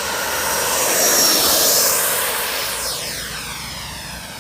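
Electric ducted fan of an RC model F-16 jet (Freewing 1450KV fan unit) flying past: a jet-like rush of air with a high whine that swells to its loudest a little over a second in, drops in pitch as it goes by, and fades away.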